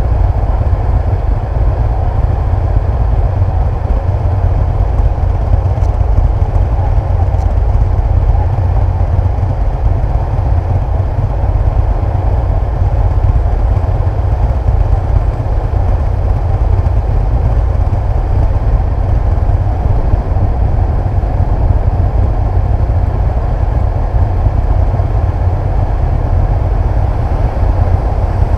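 Heavy wind noise buffeting the microphone of a moving motorcycle, with the steady running of a Honda CBF600's inline-four engine and road noise underneath.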